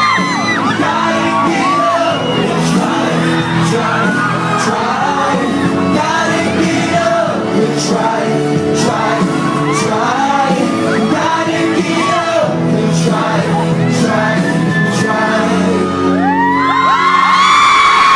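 Live pop music with singing over an amplified backing track, with a crowd screaming and cheering at the start and again near the end.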